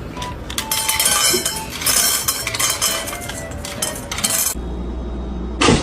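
Rapid clattering and clinking of dishes and cutlery for about four seconds, then a steady low hum.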